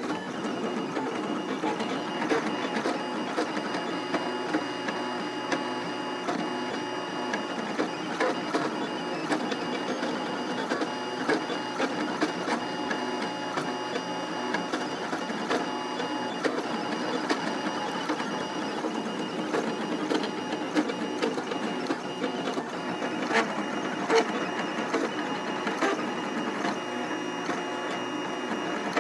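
FDM 3D printer's stepper motors whining and whirring steadily, with small ticks from quick changes of direction, as the hot end traces the first layer of a gear bearing at reduced speed.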